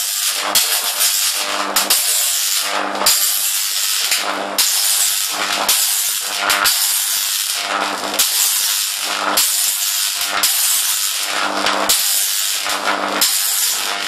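High-voltage arc from a microwave-oven-transformer-powered Jacob's ladder, hissing and crackling loudly with a low mains buzz underneath. The arc breaks off and restrikes about every 1.2 seconds.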